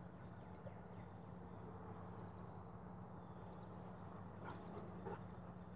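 Quiet outdoor ambience: a steady low hum under a faint even hiss, with a few faint high chirps near the end.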